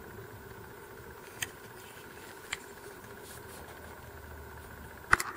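A steady background hum. Two faint clicks come from a plastic-and-brass air filter and regulator assembly being handled, and a louder knock follows near the end.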